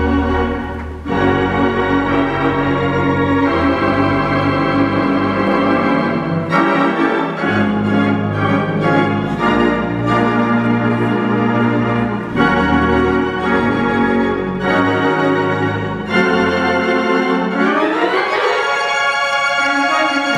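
Theatre pipe organ playing sustained full chords over a changing bass line, with a rising run of notes near the end.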